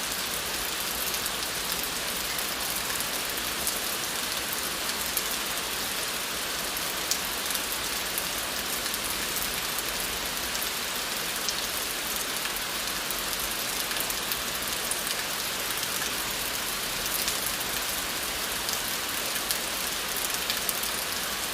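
Steady rain falling on hard surfaces, an even hiss with scattered drip ticks.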